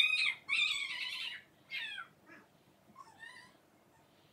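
A pet animal's high-pitched cries, four in a row: a loud one at the start, a longer one just after, a short falling one near two seconds, and a fainter one past three seconds.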